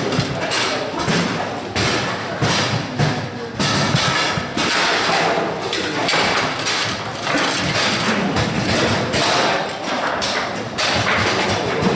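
Table football game in fast play: a steady stream of knocks and thuds as the ball is struck by the figures and hits the table walls, with the rods banging.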